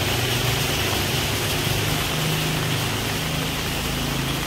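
Steady rain hiss, with a vehicle engine running low underneath.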